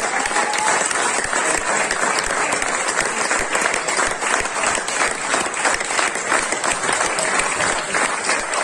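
Audience applauding, dense and steady clapping from many people.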